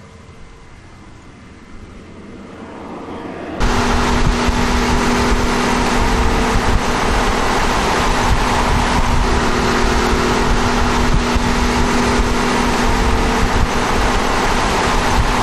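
BMW H2R race car with its 6.0-litre V12 converted to run on hydrogen, first heard faintly and growing louder as it approaches. About three and a half seconds in the sound jumps to the car at speed: the V12 holding a steady pitch under loud, steady wind rush.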